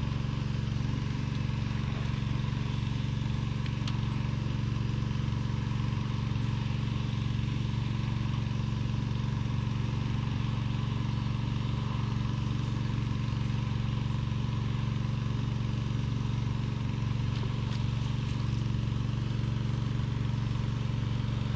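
A steady, low mechanical drone, like a motor running, that holds constant throughout with no change in pitch or level.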